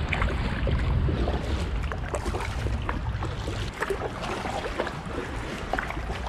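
Double-bladed kayak paddle dipping into still canal water from an inflatable kayak, with drips and small splashes scattered through each stroke, over a low rumble that eases after about four seconds.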